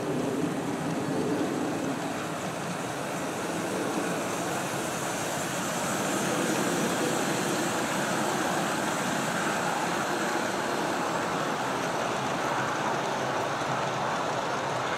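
G scale model freight train (USA Trains F3 diesel units running on track power, with a long string of freight cars) rolling past close by with a steady rumble. The sound is deeper at first, while the locomotives pass, and turns to a higher rushing sound from about five seconds in as the cars roll by.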